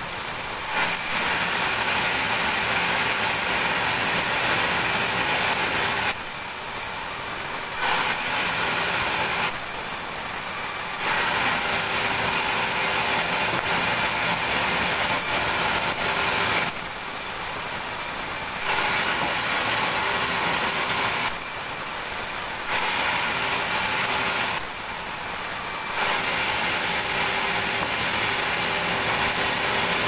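Sawmill band saw running, cutting meranti wood with a loud steady high hiss. It comes in stretches of several seconds, each dropping to a quieter run of a second or two between passes, about five times.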